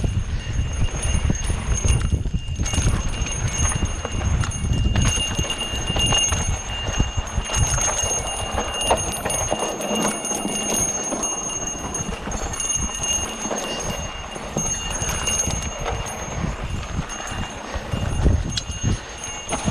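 Mountain bike being ridden over rough trail: the bike rattles and knocks over bumps and roots, with tyre noise on dirt and wind buffeting the microphone. A thin, steady high ringing runs under it.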